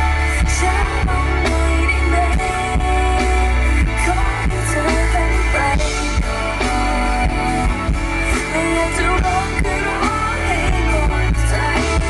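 A pop song performed live over a concert sound system, with singing over heavy bass.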